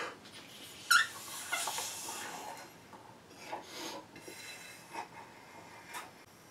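Rubber balloon being blown up by mouth: a few breathy puffs of air pushed into it, with rubber rubbing under the fingers.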